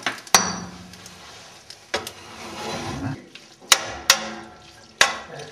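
A metal utensil stirring and tossing spaghetti in an enamelled pot, knocking sharply against the pot about five times at irregular intervals, the first knock ringing briefly.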